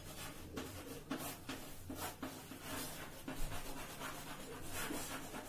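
Chalk writing on a blackboard: an irregular run of short scratchy strokes as a word is written out.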